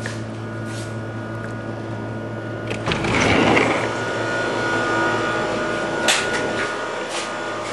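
A steady mechanical hum, a low drone with a thin high whine over it. About three seconds in, a louder rushing noise swells for about a second, and a sharp click comes about six seconds in.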